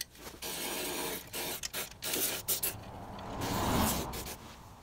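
Rust-proofing sprayer with a thin extension wand spraying Fluid Film into a frame-rail cavity in several short hissing bursts, with a duller rushing spray about three and a half seconds in.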